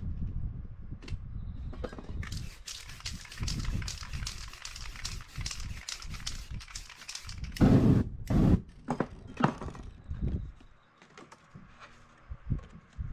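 Aerosol spray-paint can hissing in a long run of short sprays, then two loud thumps about two-thirds of the way in, followed by a few lighter knocks and rustles of handling.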